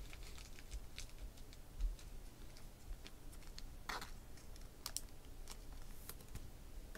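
Faint, scattered clicks and taps of trading cards being handled by hand, with a slightly sharper tap about four seconds in.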